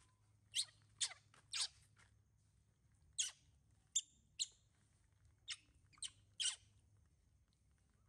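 Short, high-pitched animal chirps or squeaks, about nine of them in loose groups of two or three, each sliding quickly down in pitch.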